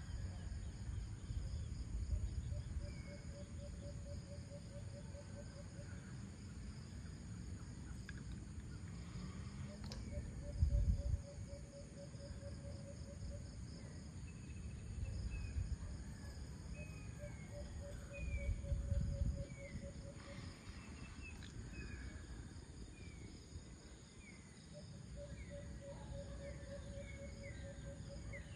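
Natural outdoor ambience: a steady high chorus of crickets, a low pulsed trill that comes in repeated bouts of a few seconds, and short falling bird chirps from about halfway on. A few low rumbles stand out, the loudest about 11 and 19 seconds in.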